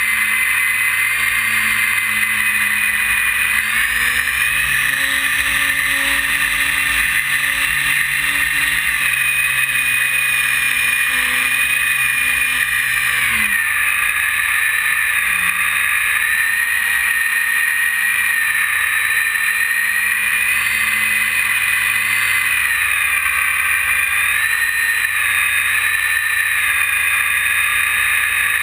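Electric RC plane's E-flite 480 1020 kV brushless outrunner motor and propeller whining, heard from a GoPro mounted on the airframe. The whine shifts up and down in pitch with throttle changes, dropping clearly about 13 seconds in, over a steady rush of wind and propwash noise.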